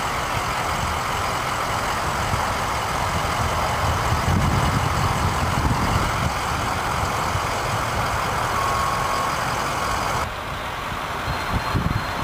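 Steady low rumble of fire engines and other emergency vehicles idling, dropping slightly and abruptly about ten seconds in.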